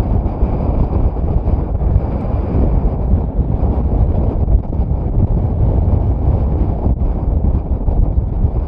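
Lava fountaining and spattering from the erupting vent of Fagradalsfjall: a loud, steady, deep rushing rumble.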